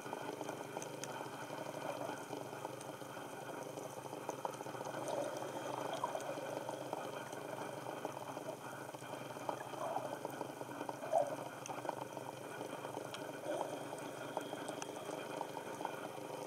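Underwater ambience picked up by a camera in its housing: a steady wash of water noise with faint scattered clicks and a few soft swells.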